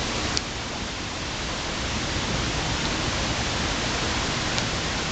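Shallow river water running over a rocky riffle, a steady rushing hiss, with one sharp click about half a second in.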